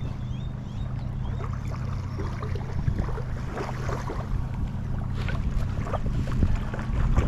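A steady low engine drone with wind noise, and scattered light clicks and knocks from about two seconds in.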